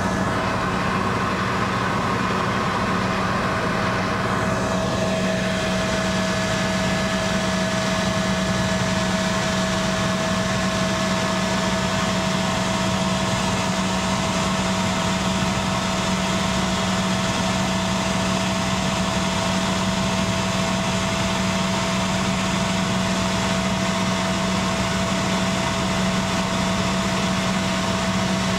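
Steady cabin noise of a tour helicopter in flight, its turbine and rotor making a constant low drone with a steady higher whine.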